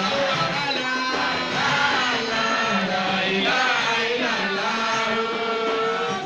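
Music with singing voices: a chant-like song with long held notes that slide between pitches, continuing steadily.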